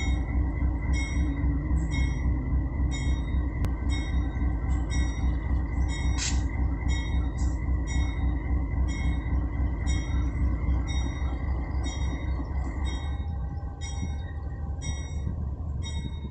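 Diesel-electric freight locomotive moving slowly along the track, its engine giving a steady deep rumble. Faint high-pitched squeaks repeat a little under twice a second.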